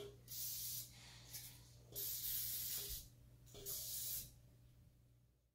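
Aerosol cooking spray hissing from the can in four bursts, two of them about a second long, as a bundt pan is coated.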